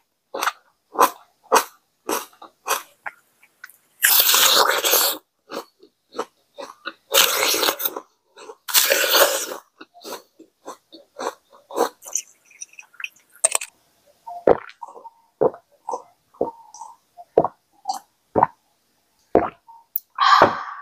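Close-miked crunching bites into a raw red apple, three long crisp crunches about four, seven and nine seconds in, with wet chewing clicks between them. The chewing grows fainter and sparser in the second half, and there is a short burst just before the end.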